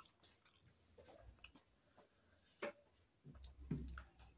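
Faint chewing and small mouth clicks from eating steamed momos, with a few louder soft knocks and a low rumble near the end as food is picked by hand from a steel plate.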